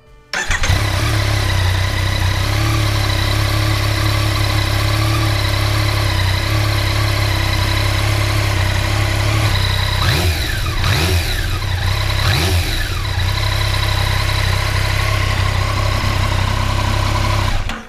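Yamaha XSR900's inline three-cylinder engine running steadily at idle after an oil change, run to circulate the fresh oil before the level is checked, with a few short throttle revs about ten to thirteen seconds in. The sound starts and stops abruptly.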